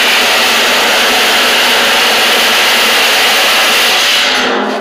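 Cordless reciprocating saw cutting through the thin sheet-steel wall of a 55-gallon drum: a loud, steady cutting noise that stops about four seconds in, as the cut around the drum is finished.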